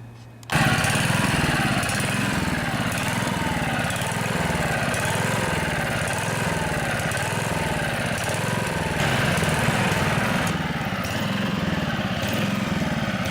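Honda HR215 lawnmower engine running and surging, its speed rising and falling over and over in a regular hunting rhythm. This is a sign of fuel starvation from an obstructed carburetor jet: the engine surges at both low and high speed and will only keep running on choke.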